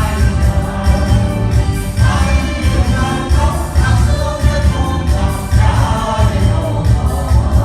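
A group of voices singing together over loud accompaniment music with a steady, heavy bass beat.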